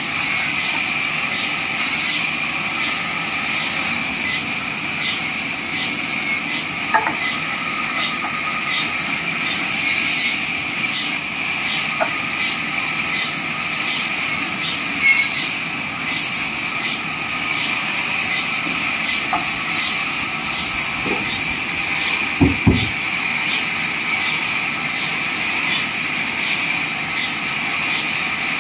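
Vertical band sawmill running steadily as logs are pushed through its blade, a continuous hissing saw noise. A few wooden knocks of timber handled on the saw table, the loudest about two-thirds of the way through.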